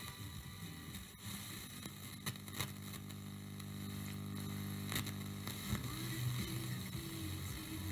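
Homemade low-IF FM radio receiver played through an audio amplifier while being tuned by hand: steady static hiss with a few crackles, a steady low hum for a couple of seconds in the middle, and a weak station's sound wavering in near the end. Weaker stations sink into the noise on this simple receiver.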